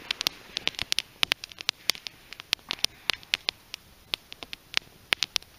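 Small fire of split green western red cedar burning and crackling: sharp, irregular pops, several a second, over a faint hiss.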